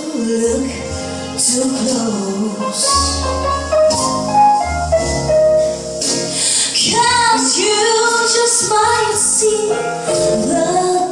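A woman singing into a handheld microphone over instrumental accompaniment with a steady bass line, her voice holding and bending long notes.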